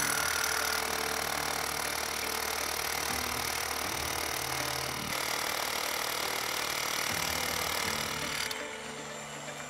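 Corded rotary hammer drill with a masonry bit boring into a concrete footing, a steady hammering drill noise that stops near the end. It is drilling holes for vertical rebar.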